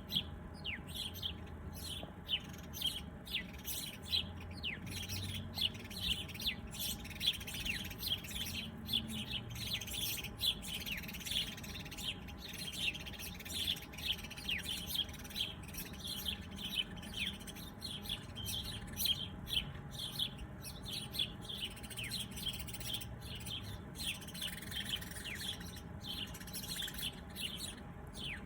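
Small birds chirping continuously: many short, quick, high downward-sliding chirps, several a second.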